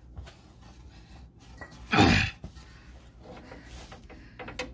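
A person's sharp, loud breath about two seconds in, with a few faint clicks near the end.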